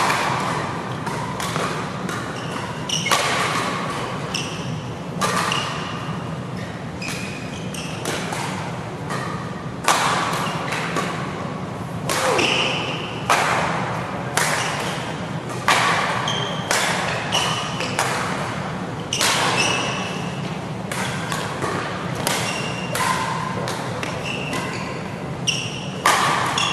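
Badminton doubles rally: sharp racket strikes on the shuttlecock about once a second, with short high squeaks of shoes on the court mat between them, over a steady low hum.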